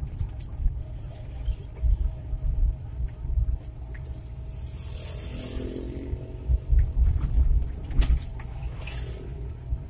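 Inside the cab of an old Suzuki Carry 1.0 pickup on the move: steady low rumble of its 1.0-litre four-cylinder engine and road noise, with frequent clicks and knocks from the cab. A short hiss comes about halfway through and again near the end.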